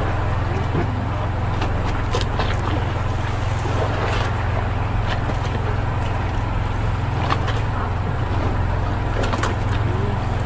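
A small engine running steadily at a constant pitch, a low drone, with scattered light clicks and knocks over it.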